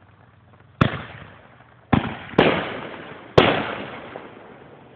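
Aerial fireworks bursting in the sky: four sharp bangs over about three seconds, each trailing off in an echo.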